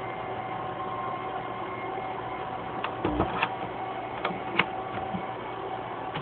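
Car amplifier fed through a home-wired line mixer putting out steady whistling tones, a fault the owner suspects comes from his soldering or a missing ground. Several sharp clicks and knocks come between about three and four and a half seconds in.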